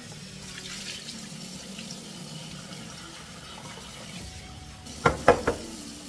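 Kitchen tap running and water splashing into a sink as raw chicken pieces are rinsed in a pot and the water is poured off. Three quick knocks come close together about five seconds in.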